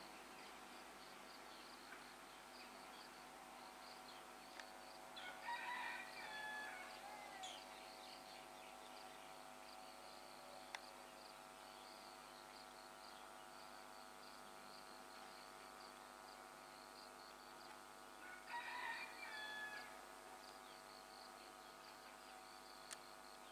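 Faint rooster crowing twice, about thirteen seconds apart, over a steady high insect chirring.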